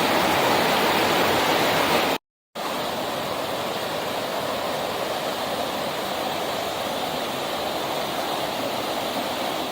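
Waterfall rushing steadily, its flow swollen by rain. The sound cuts out completely for a moment about two seconds in, then returns a little quieter.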